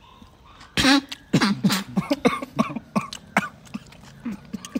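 A person coughing and sputtering, choking on spicy food. One loud cough comes about a second in, then a run of shorter coughs.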